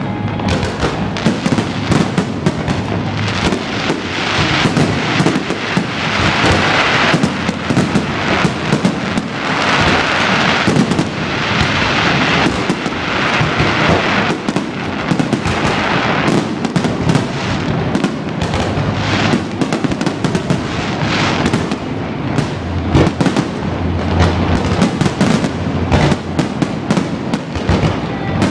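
Fireworks display: a dense, continuous barrage of bangs and crackling, with stretches of heavier crackle partway through.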